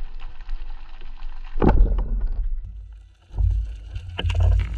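Muffled underwater noise through an action camera's housing: low rumbling and sloshing of water as a freediver swims up toward the surface, with a loud whoosh about two seconds in and a few sharp knocks near the end.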